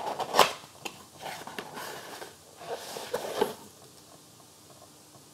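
Cardboard book packaging being handled as a hardcover book is pulled out of it: rustling and scraping with several sharp knocks, stopping after about three and a half seconds.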